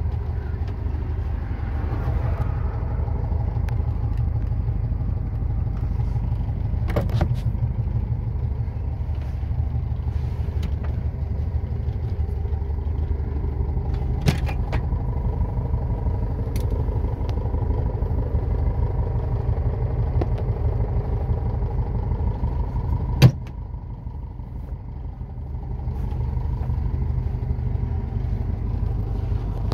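VW bus's stock 1500 air-cooled flat-four engine running, heard inside the cabin as a steady low rumble with scattered rattles and clicks from the interior. Near the end a sharp knock is followed by a few seconds of lower rumble that then builds again.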